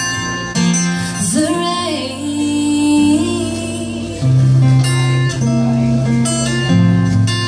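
Acoustic guitar playing the closing bars of a live song, notes changing every half second or so, with a brief wordless sung note that bends upward about a second and a half in.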